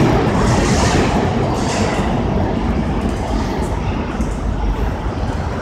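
R160 subway train pulling away into the tunnel, the rumble of its wheels on the rails slowly fading.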